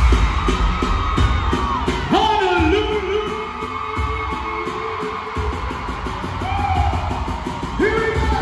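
Live pop concert music: a heavy, pulsing bass beat with a sung vocal line gliding over it.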